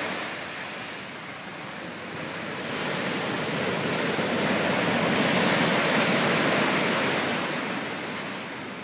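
Ocean surf breaking and washing up the sand, a steady rush that swells to its loudest in the middle and eases off near the end.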